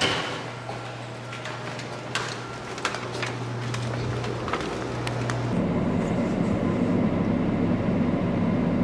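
Scattered knocks and clicks of things being carried and handled, over a steady low hum. About five and a half seconds in, this gives way to the steady, even noise inside a car with the engine running.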